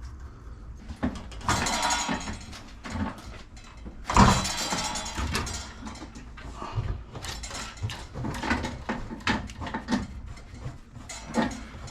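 Clicks, knocks and rustling from plumbing parts being handled as water-heater supply connectors are threaded onto their fittings and tightened, with two longer rustling stretches early and mid-way.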